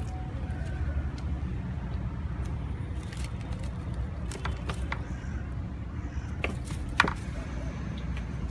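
Steady low rumble of street traffic, with scattered light clicks over it and one sharper click near the end.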